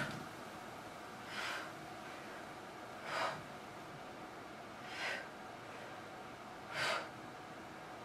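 A woman breathing out hard, one breath with each rep of incline dumbbell chest presses, about five breaths a couple of seconds apart.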